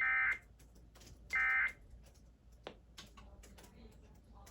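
Emergency Alert System end-of-message data bursts: two short, loud, buzzy digital tone bursts about 1.4 s apart, the last of the standard three repeats closing the alert. A few faint clicks follow.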